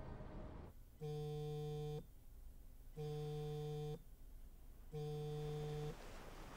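Electronic beeper sounding three times, each beep about a second long with a second's gap, a flat buzzy tone at one pitch, as a sleeper is woken. The tail of a music cue fades out just before the first beep.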